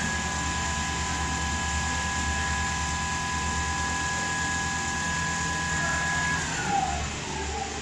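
Richpeace automatic cushion-case sewing machine running a seam: its motor whine holds steady over the fast rhythm of the stitching, then winds down about six and a half seconds in.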